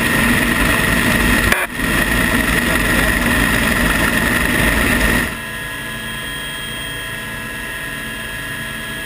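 Rescue helicopter running in a hover, heard loud through the open cabin door during a hoist, with a steady high whine over the rotor and engine noise. About 5 seconds in it drops to a quieter, duller hum heard inside the closed cabin.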